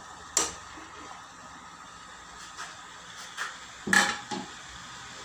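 A metal spoon knocking and clinking against a nonstick frying pan while chopped red cabbage and vegetables are stirred. A few scattered clinks, the loudest and briefly ringing about four seconds in, over a faint steady hiss.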